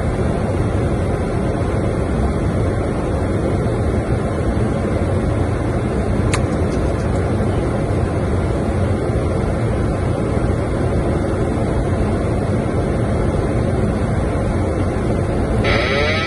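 Steady rushing noise on the flight deck of a Boeing 737-800 on final approach: airflow and engine noise, with a single click about six seconds in. Just before the end a higher, pitched electronic sound starts.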